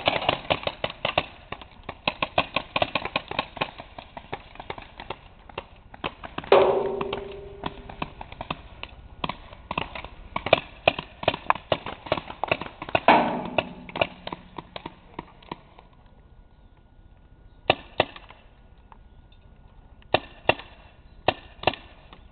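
Paintball markers firing in rapid volleys of sharp pops, several a second, thinning to scattered shots after about sixteen seconds. Twice, a louder hit rings on with a drawn-out tone.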